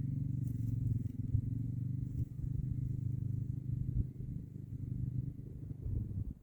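Small off-road engine running at a steady pitch, growing quieter after about four seconds.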